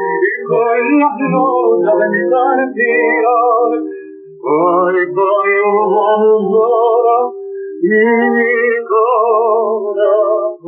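Male voice singing a Spanish zamba-canción in long phrases with a wide vibrato, accompanied by guitars. The recording is an old film soundtrack with nothing above the mid-treble.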